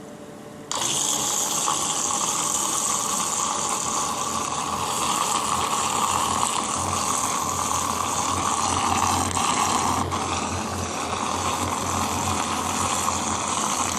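Hershey Tornado mixer's small motor running, churning chocolate milk into foam; it switches on about a second in and runs steadily, with the sound of liquid stirring.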